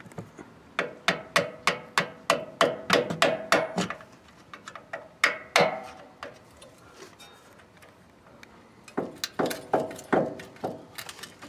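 Hammer tapping a screwdriver to drive out the metal retaining clip that holds the front brake hose to its frame bracket. It makes quick, ringing metal taps, about four a second for a few seconds, then a pause, then another run of taps near the end.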